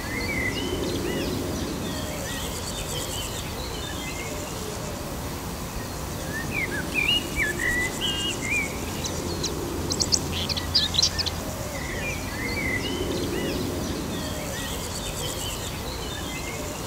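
Wild birds chirping and singing in short scattered phrases over a steady background hiss and low hum, with a run of sharp high calls about ten seconds in.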